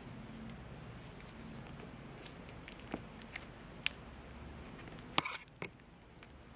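Scattered small clicks and crackles of fingers picking and peeling rubbery silicone sealant off a plastic automatic choke unit, the loudest a few quick clicks about five seconds in, over a faint steady hiss.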